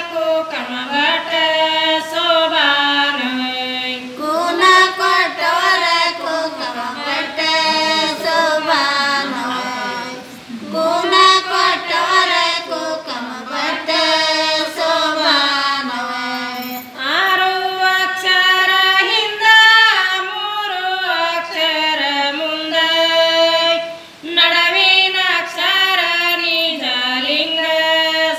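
Women singing a Kannada sobaana pada folk song unaccompanied, a slow melodic line in phrases with brief breaths between them.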